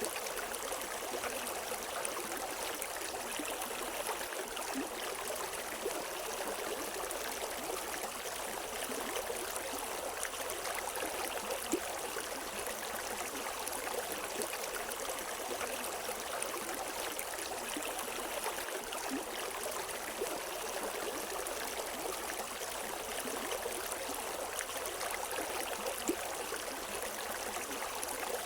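River water running over rocks, a steady rushing and splashing with small gurgles and occasional brief splashes, no birds.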